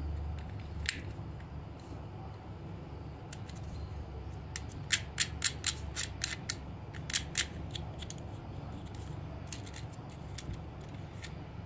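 Sharp plastic clicks and snaps from handling a toy mechanical praying mantis as its parts are pressed and fitted. There is one click about a second in, then a quick run of about ten clicks in the middle, with a few fainter ticks later.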